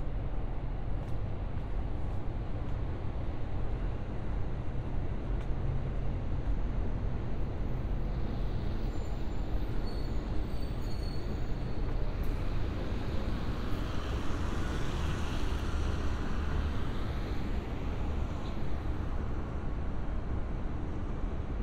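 Low, steady rumble of city traffic. A city bus drives past in the middle, its engine and tyre noise swelling and then fading.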